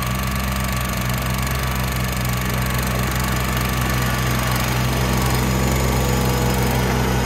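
Kubota BX23S compact tractor's three-cylinder diesel engine running steadily while the tractor drives, shortly after a cold start. It gets slightly louder from about halfway through as the tractor comes closer.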